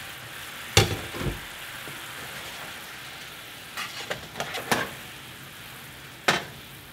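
Soy-based sauce bubbling and sizzling steadily in a hot nonstick frying pan, with a spatula knocking and scraping against the pan about a second in, several times around four to five seconds, and once near the end.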